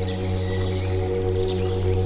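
Ambient meditation music: sustained low drone tones held steady like a singing bowl pad, with faint high chirps over it.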